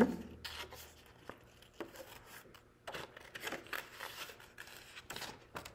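Scissors cutting a small circle out of construction paper, with the paper rustling: a scatter of short, crisp snips and crinkles.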